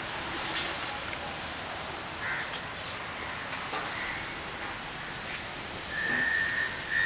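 Steady roadside ambience, an even hiss of distant traffic. Near the end, two short high whistle-like tones sound, the first longer than the second.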